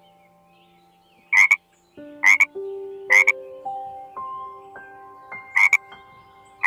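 A frog croaking in about five short, loud calls roughly a second apart, over a background tune of single notes stepping upward in pitch.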